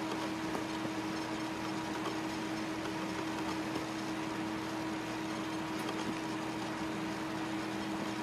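Steady, even machine hum with one constant low tone, like a fan running.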